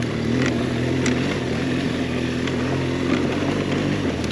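BMW R 1200 GS boxer-twin engine running at a steady, low pace on a trail, its pitch drifting slightly up and down, with a few light ticks over it.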